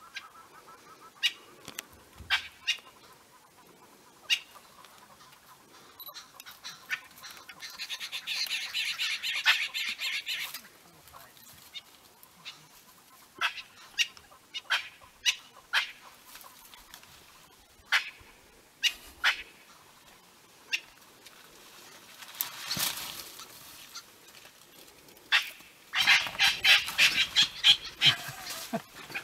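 Francolins giving alarm calls: scattered sharp single notes, with two loud runs of fast, rapidly repeated harsh calls, one about eight seconds in and one near the end.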